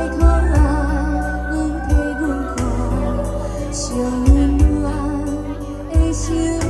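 A young girl singing a Taiwanese Hokkien ballad live into a microphone through a stage sound system. Her held notes waver with vibrato over backing music with a steady bass line and a beat roughly every two seconds.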